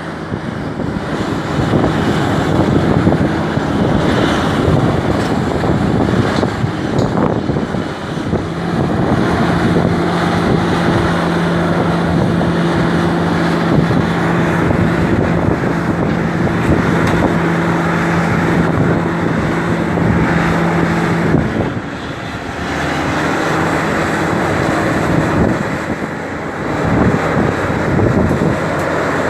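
Large hydraulic excavator's diesel engine running, with wind buffeting the microphone. A steady engine drone holds one pitch through the middle stretch, then drops away about three-quarters of the way through.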